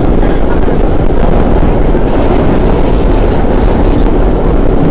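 Vintage IND R1/9 subway car running along the track, heard on board: a loud, steady rumble with no breaks, and a faint high tone in the middle.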